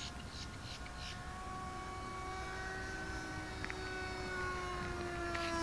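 Radio-controlled model airplane flying overhead, its E-flite Power 46 brushless electric motor and propeller giving a steady whine. The pitch drifts slowly lower as it grows gradually louder towards the end.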